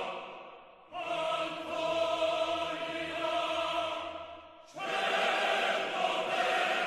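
A choir singing long held chords in separate phrases: one fades out about a second in, the next holds for nearly four seconds, and a third starts near five seconds and holds on.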